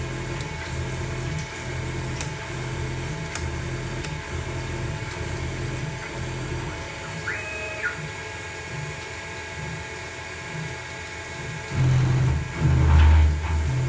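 Grizzly G0704 benchtop CNC mill cutting aluminium: steady spindle and cutter whine over a hiss, with a brief rising-and-falling whine about halfway through. A pulsing bass from background music runs underneath and grows louder near the end.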